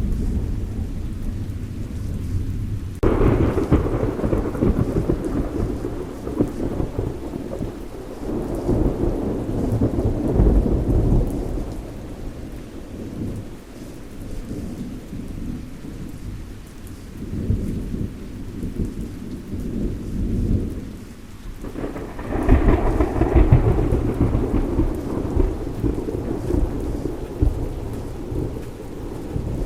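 Thunderstorm: steady rain with thunder. A sudden thunderclap a few seconds in rumbles on for several seconds, and a second clap about two-thirds of the way through rumbles to the end.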